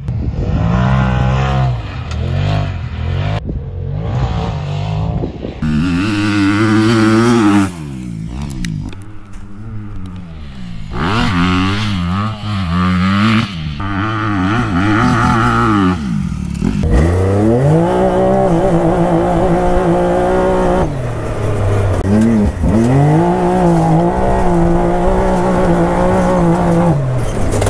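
Dirt bike engine revving hard on a timed lap of a dirt track. The revs repeatedly drop and climb again as it brakes and accelerates through the corners, with longer stretches held steady at high revs in the second half.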